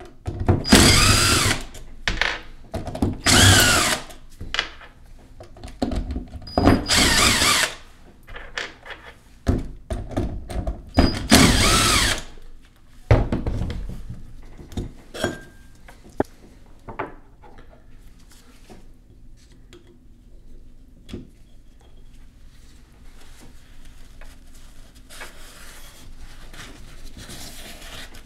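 Cordless power driver spinning out the cover-plate screws of a Ford 3.5L EcoBoost vacuum pump: four loud runs of about a second each, its motor pitch sliding up and down, with shorter bursts between. After that come quieter handling of the metal parts and a paper towel wiping near the end.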